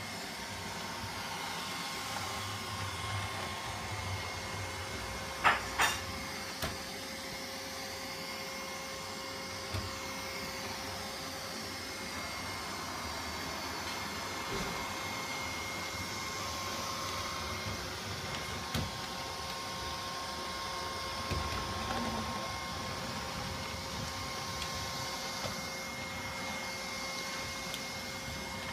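Neato Botvac D80 robot vacuum running: a steady hum of its suction fan and brushes with a constant whine over it. A couple of sharp knocks come about five and a half seconds in.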